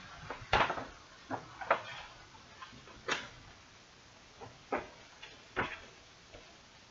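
Folded paper map leaflet being opened out and handled: a handful of short crackles and rustles of paper, the loudest about half a second and again nearly two seconds in.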